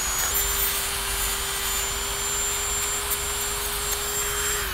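Handheld Dremel rotary tool with a sanding drum running at a steady high speed, a constant whine over a hiss as it sands the sharp cut end of a metal spoon handle round. It cuts off at the end, the high whine dropping away.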